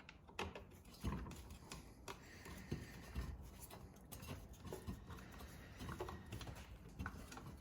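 Faint, irregular clicks and light knocks of a bolt being tightened by hand tool into a Stihl power head's plastic housing.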